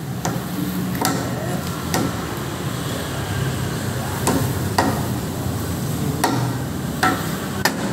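Sharp wooden knocks, about eight at irregular intervals, as a teppanyaki chef bangs and flips a pair of pepper mills during his show. A steady low hum runs underneath.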